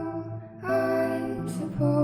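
Background music: a slow melody of held notes that step from one pitch to the next.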